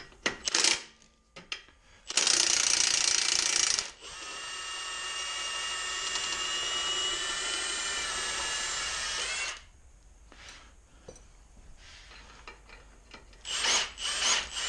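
Cordless impact wrench on an engine motor mount bolt. About two seconds in it hammers loudly for roughly two seconds, then runs as a steady whine for about five seconds as the fastener spins off. Near the end come a few short bursts.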